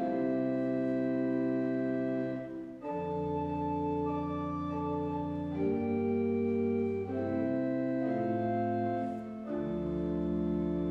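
Church organ playing slow sustained chords that change every second or two, with deep bass notes coming in about three seconds in and again near the end.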